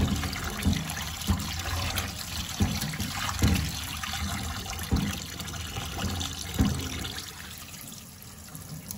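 Tap water pouring into a metal bowl while gloved hands swish and squeeze an indigo-dyed T-shirt in it to rinse out the dye, with several splashy sloshes as the cloth is worked. It grows quieter toward the end.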